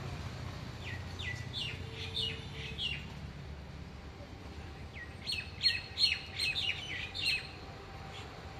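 A bird calling outdoors in two bursts of quick, sharp chirps, each note falling in pitch: the first burst about a second in, the second, louder one about five seconds in. A steady low rumble runs underneath.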